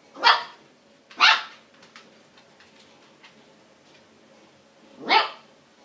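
Siberian husky puppy giving three short barks, two about a second apart and a third some four seconds later: play barks at an older dog to get it to play.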